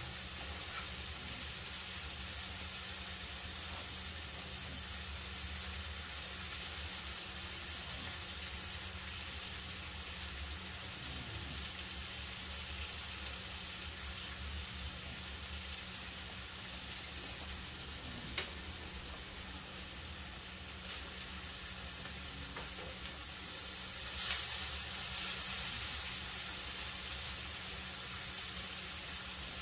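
Thin ground-beef patty sizzling steadily in a hot, oiled griddle pan, as its first side finishes cooking. A single light click comes a little past halfway, and the sizzle grows louder and brighter for a couple of seconds near the end.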